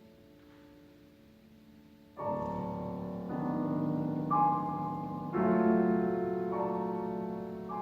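Solo piano: a held chord dies away, then about two seconds in a series of chords is struck, a new one roughly every second, each left ringing.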